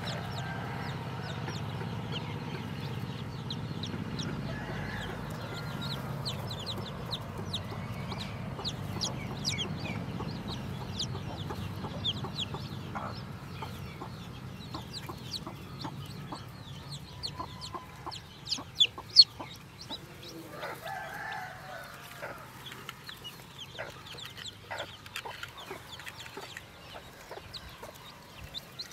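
Newly hatched chicks peeping over and over in short, high cheeps, with a broody hen clucking beneath them. A few peeps about two-thirds through are much louder than the rest.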